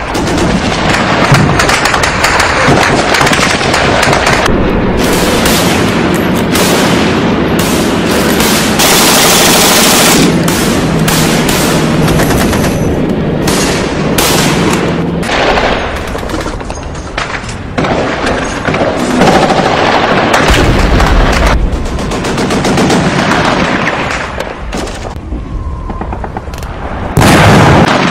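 Loud battle sounds: rapid gunfire like machine-gun bursts, mixed with booms, over a steady low drone in the first half.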